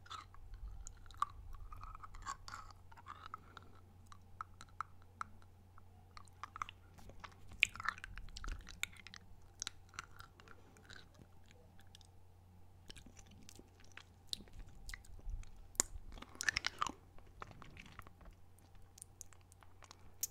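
Close-miked mouth sounds of a Dum Dum lollipop being sucked and turned in the mouth: scattered wet smacks and clicks of the hard candy against lips and teeth, with denser bursts about eight and sixteen seconds in.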